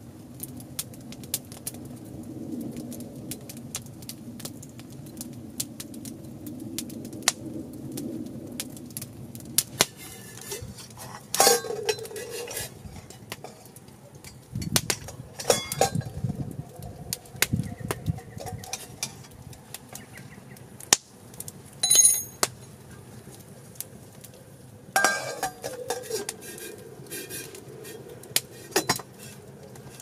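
Campfire of small sticks crackling with scattered snaps under a hanging cooking pot. Several times the pot's metal lid clinks and clanks with a brief ring as it is handled with a metal hook.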